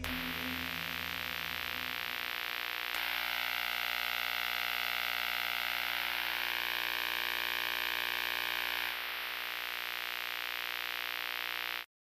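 Glitchy electronic static sound effect: a steady hiss with a fast, faint pulsing. A thin high whine joins about three seconds in, steps up slightly in pitch partway through, and drops out about three seconds later. The sound cuts off abruptly just before the end.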